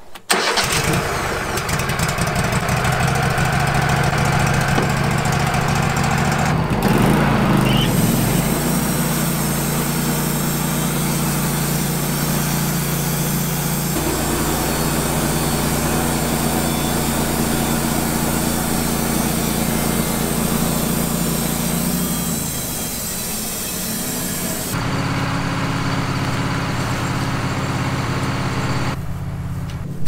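Gas engine of a Wood-Mizer LT15 portable bandsaw sawmill running steadily, its note changing abruptly several times.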